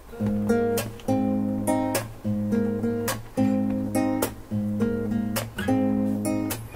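Two acoustic guitars playing an instrumental piece together, a 1968 Epiphone FT-45 Cortez steel-string and a Yamaha NTX1200R nylon-string. A repeating pattern of plucked and strummed chords rings over a held low bass note, and the playing starts just as the clip begins.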